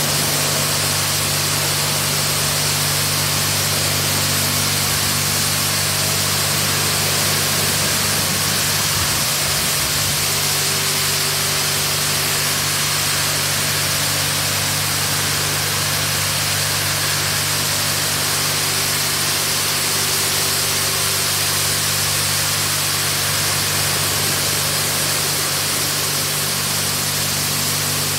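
Touchless automatic car wash spraying a car: steady hiss of high-pressure water jets from the moving gantry arm over a steady low machine hum.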